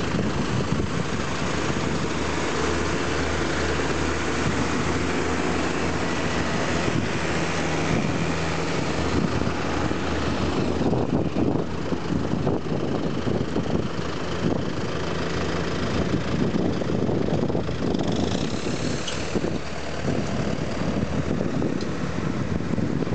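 Tractor diesel engine running steadily while its hydraulics raise a tipping trailer loaded with chopped maize.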